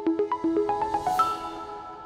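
Short musical logo sting: a quick run of struck, pitched notes that ends on a bright high note about a second in, which then rings out and fades.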